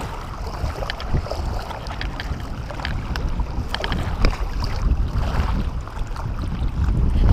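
Wind buffeting the microphone as a steady low rumble, with scattered light clicks and handling noises.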